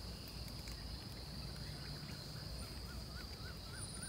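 Steady high-pitched insect drone, with a bird calling a quick run of short up-and-down notes, about two a second, in the second half.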